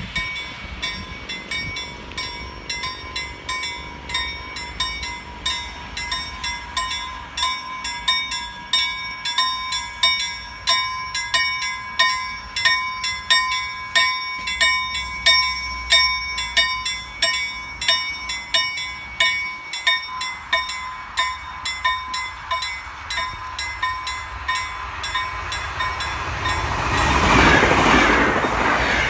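Level crossing bells ringing in fast, even strokes, a little over two a second. From about 27 s an electric passenger train passes over the crossing, and its rumble becomes the loudest sound.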